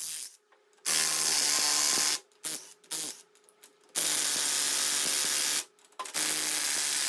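Cordless drill spinning a socket on the oil-pan bolts of a lawnmower engine, run in steady trigger pulls of a second or so with short blips and pauses between. The bolts are held with Loctite and are hard to break loose.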